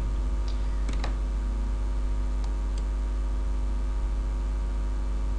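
Steady electrical mains hum on the recording, with a few faint clicks at irregular moments.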